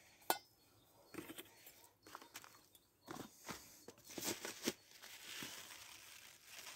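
Faint handling sounds of a paper seed packet: scattered light clicks and crinkles, then a soft pouring hiss from about five seconds in as spinach seed runs from the packet into a metal bowl.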